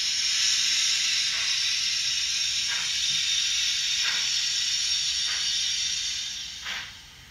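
Model steam locomotive's DCC sound decoder playing steam sounds through its small onboard speaker: a steady hiss with a slow chuff about every 1.3 seconds as the loco moves forward. The hiss fades away near the end as the locomotive comes to rest on the turntable.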